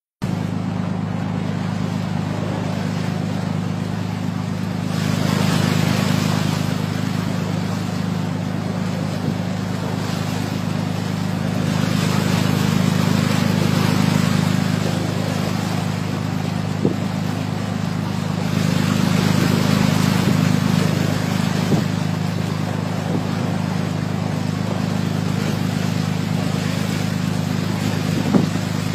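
Speedboat engine running at a steady drone, with rushing water and wind that swell louder three times, about five, twelve and nineteen seconds in.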